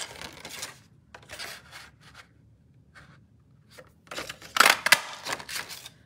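A sheet of cardstock rustling and scraping as it is handled and slid against a large paper punch, in several short bursts. The loudest bursts come near the end, with a couple of sharp taps.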